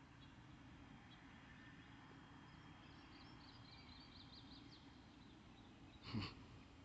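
Quiet outdoor ambience: faint birds chirping over a low steady background rumble, with one brief thump about six seconds in.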